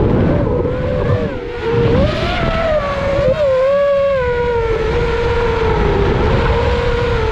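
FPV quadcopter's brushless motors and propellers whining, the pitch swooping up and down with throttle changes, then holding a nearly steady tone over the last couple of seconds, with wind rumble underneath.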